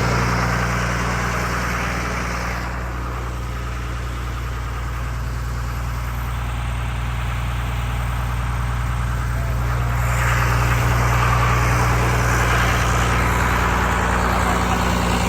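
River pump's motor running steadily with a deep, even hum, flooding the bottomland through a pipe under the levee. A brighter hiss swells slightly about ten seconds in.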